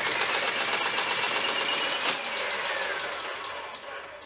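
Terasaki AT25 air circuit breaker's motor-driven spring-charging mechanism running, a dense whirring drone. A whine rises until about two seconds in, then falls as it winds down near the end. This is typical of the closing springs being recharged after the breaker has closed.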